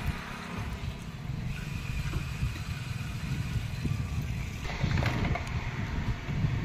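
Motorcycle engine running with a steady low rumble, growing louder about two-thirds of the way through.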